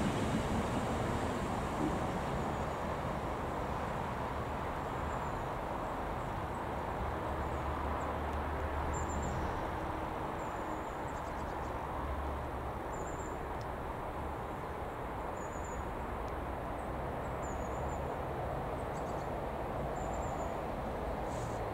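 GBRF freight train's hopper wagons rolling away into the distance, the rumble fading over the first couple of seconds and then holding as a steady low rumble. Short high bird chirps come every couple of seconds.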